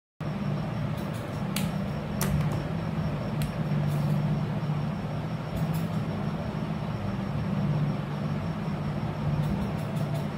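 A steady low mechanical hum, with a few light clicks and taps now and then.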